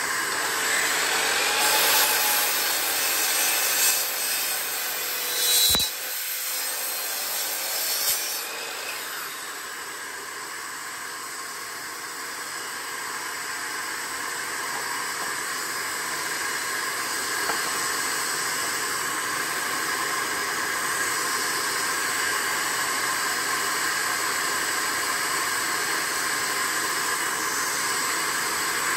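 DeWalt sliding compound miter saw cutting a zebrawood board over the first several seconds, with a sharp knock about six seconds in. The saw makes a high-pitched noise, which the owner puts down to a dirty, worn 96-tooth blade that is also leaving burn marks. After the cut, a shop vacuum's steady hiss carries on.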